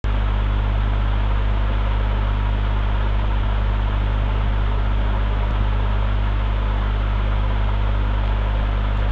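Steady low electrical hum with a constant hiss, unchanging throughout: background noise of the recording setup.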